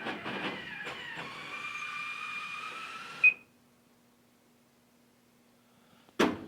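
Vending machine's spiral motor whirring for about three seconds after a keypad beep, ending with a second beep; the book selected does not drop and stays hung up in the coil. Then a faint hum, and near the end a quick run of knocks, about four a second.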